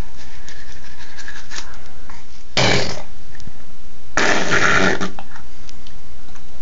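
A dog making two loud, breathy sounds while its teeth are brushed: a short one about two and a half seconds in and a longer one a second and a half later.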